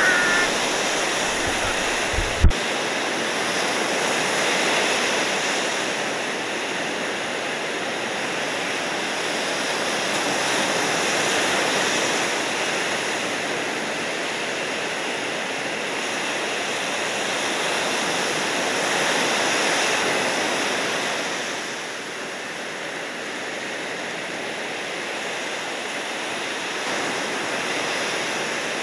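Ocean surf: a steady wash of breaking and rushing seawater that swells and eases every several seconds. A single sharp click sounds about two seconds in.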